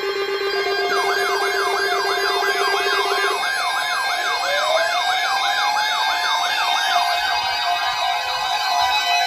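Siren yelp sweeping rapidly up and down, about three to four times a second, starting about a second in, over steady held electronic tones. A second siren tone winds upward a little past the middle.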